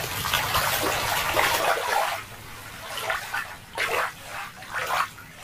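Shallow water splashing as a plastic toy starfish is dipped and swished in it by hand. The splashing is steady for about two seconds, then drops to a few quieter, separate swishes.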